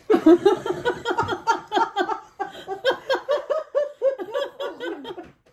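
Hearty adult laughter, an elderly man's among it: a long run of quick ha-ha pulses that climbs a little in pitch in the second half.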